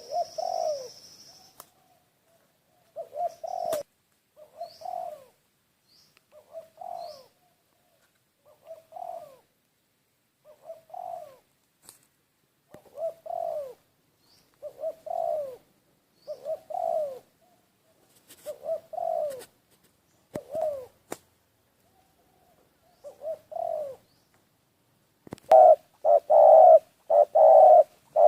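Dove cooing: short, low, falling coos about every two seconds, turning into a quick run of louder coos near the end. A few faint high chirps from a small bird come early on, and there are occasional sharp clicks.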